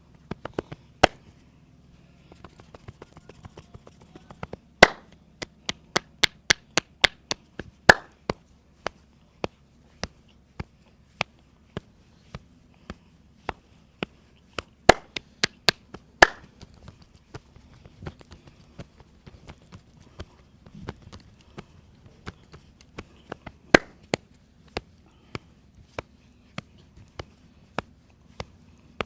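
Sharp percussive strikes of a masseur's hands during a head and back massage, slaps and chopping blows at about one or two a second, with a quicker run of strikes and a few much louder ones.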